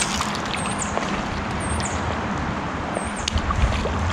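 Steady rush of flowing creek water, with a bird repeating a short high call about once a second.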